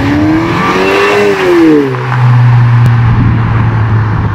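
Lexus IS with a muffler-delete axle-back exhaust accelerating past, its engine note climbing and then falling away over the first two seconds. The exhaust then holds a steady, deep drone.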